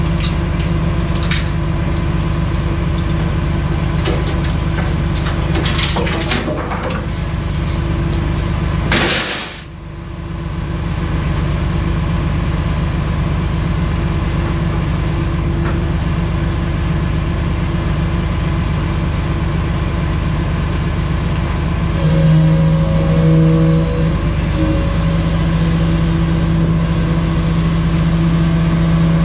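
Rollback tow truck's engine running steadily while its hydraulic bed is worked. About 22 seconds in the engine hum grows louder and steadier as the bed starts to tilt; a short hiss near 9 seconds is followed by a brief drop in level.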